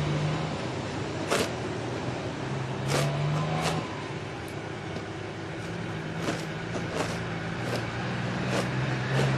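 Street traffic: cars passing on a snowy street, a steady rush of tyre and road noise with a low engine hum that swells three times. Several sharp clicks or knocks, about eight, are scattered through it.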